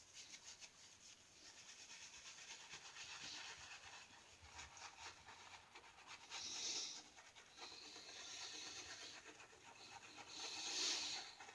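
Boar/badger-knot shaving brush swirling Williams soap into lather, a fast, soft, rhythmic wet brushing that swells louder twice, about halfway through and near the end.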